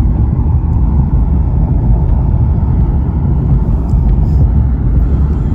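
Steady low rumble of a car driving along a road, heard from inside the cabin: tyre, road and engine noise.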